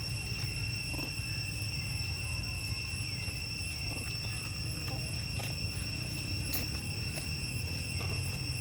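Steady high-pitched insect drone, one unbroken tone with overtones, over a constant low rumble, with a few faint clicks.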